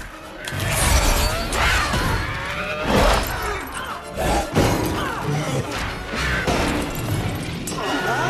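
Film action soundtrack: music mixed with the shrieks and snarls of the hydra's heads, with sudden crashing impacts about 3 and 4.5 seconds in.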